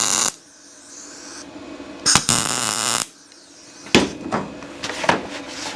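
Welding arc crackling in short bursts: the weld stops sharply about a third of a second in, and a second short tack weld runs for about a second a little after two seconds in. A few sharp clicks follow near the end.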